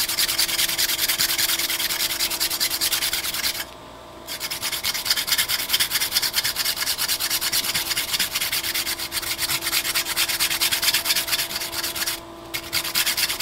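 Fresh ginger root being grated on a plastic grater: a rapid, even run of rasping back-and-forth strokes, broken by a short pause about four seconds in and another near the end.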